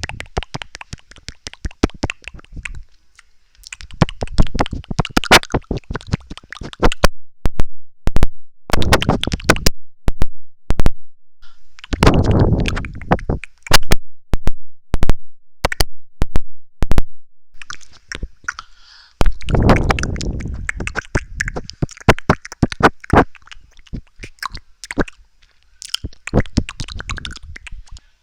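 Close-miked ASMR mouth sounds: wet tongue clicks and lip smacks coming in quick clusters, with short pauses between the clusters.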